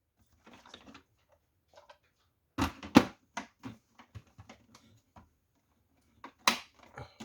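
Plastic clicks and knocks from handling a toy vacuum cleaner and its removable top lid, with the loudest knocks about two and a half to three seconds in and again near the end, and lighter ticks between.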